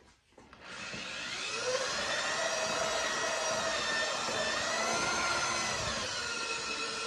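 Electric drill spinning a paddle mixer in a gallon pail of LizardSkin sound control coating, stirring it until it is sprayable. The drill starts under a second in and runs steadily, its pitch wavering slightly.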